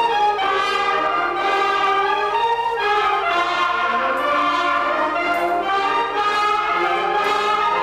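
Wind band (harmonie) music with brass to the fore, trumpets and trombones playing a melody in held notes that move from one pitch to the next.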